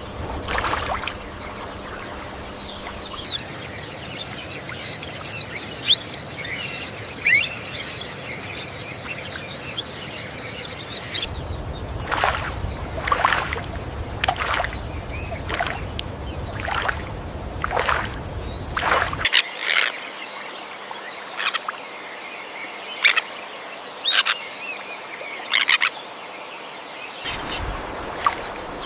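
Birds chirping and calling over a steady background hiss. There is a run of quick high chirps, then sharper, louder calls every second or so. The background changes abruptly several times.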